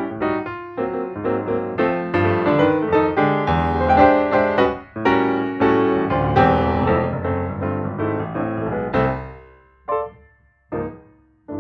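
Background piano music: a busy run of notes that slows and fades about nine seconds in, then a few single chords struck and left to ring out.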